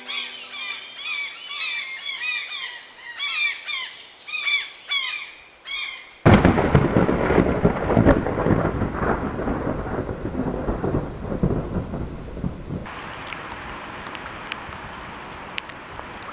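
Birds chirping in quick repeated calls. About six seconds in, a sudden loud thunderclap breaks in and rumbles, slowly fading. From about thirteen seconds a steady hiss with scattered ticks follows.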